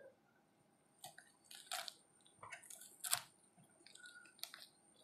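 Kitchen knife slicing through fresh green chillies on a wooden chopping board: a string of faint, crisp, irregular cuts starting about a second in.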